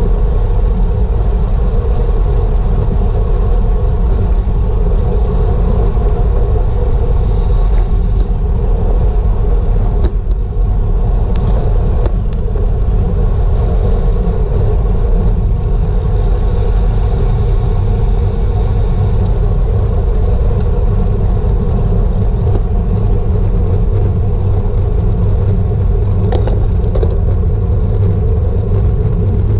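Steady, loud wind rumble on a GoPro riding on a racing bicycle at speed, with a few brief clicks about ten seconds in and again near the end.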